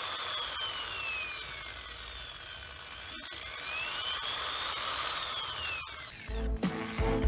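Corded power tool's electric motor whining as a dimmer varies its speed: the pitch falls, rises, then falls again. Music comes in near the end.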